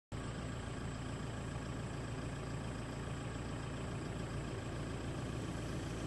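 Vehicle engine running steadily, with an even hiss of noise over it.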